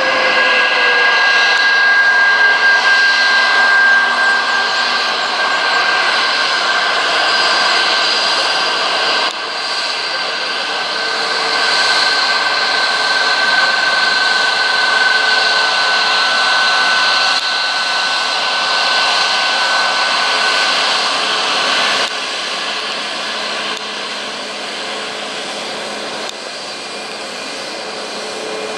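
Boeing 737's twin jet engines running at low taxi power as the airliner rolls along the runway, a steady rushing hiss with several high whining tones over it.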